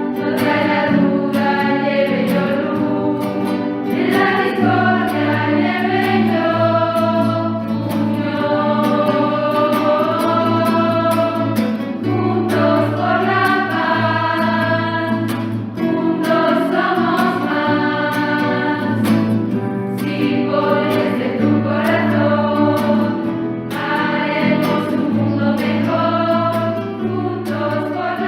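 Choral singing with instrumental accompaniment: sustained sung phrases over a steady low backing, in the style of a religious hymn.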